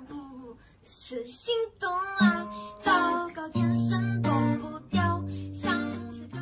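Background song: a plucked acoustic guitar with a singing voice over held low notes.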